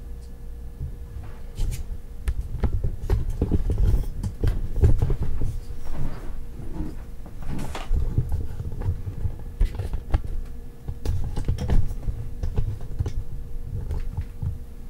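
Hands handling computer parts and packaging: irregular small clicks, light knocks and rustling with low thuds, and a faint steady hum underneath.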